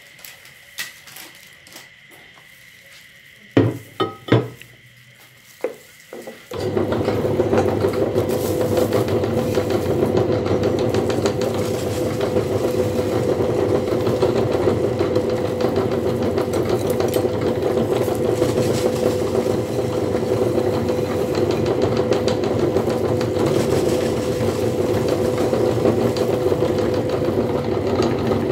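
A few knocks, then about six and a half seconds in a belt-driven meat grinder starts up and runs steadily with a constant hum while grinding chocolate snack balls into powder.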